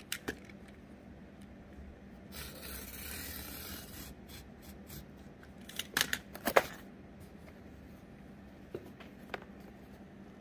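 Cardboard and small craft parts being handled: scattered clicks and taps, a scraping rustle about two to four seconds in, and a cluster of louder clicks about six seconds in.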